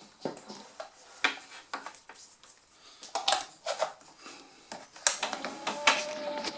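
Irregular clicks and knocks of hard plastic parts being handled and set down. About five seconds in, a steady hum starts up, the Jobo CPE-2 film processor's motor running.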